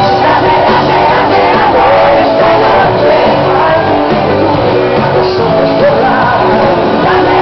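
Loud live band music with a singer, heard in a large hall, with some shouting over it.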